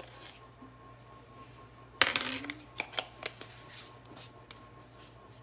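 A metal utensil strikes the stainless steel mixing bowl about two seconds in, giving a bright ringing clink, followed by a few lighter clicks and taps as dry ingredients are measured in.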